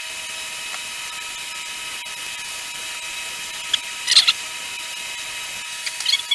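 Small electric motor running steadily, a high whine over an even hiss, with a few short clicks about four seconds in and again near the end.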